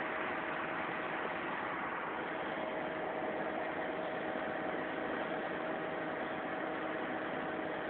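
Kato mobile crane's engine running steadily: an even hum with a constant thin tone through it.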